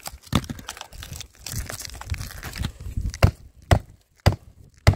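A cut section of OSB roof decking being knocked out and broken free: crunching and splintering wood, then a run of sharp knocks in the second half.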